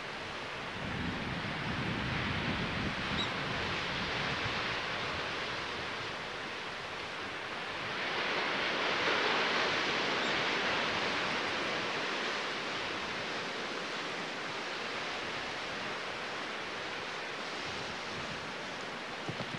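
Sea surf washing and hissing steadily, with wind buffeting the microphone in low gusts early on. About halfway through, the surf swells louder for a few seconds and then settles back.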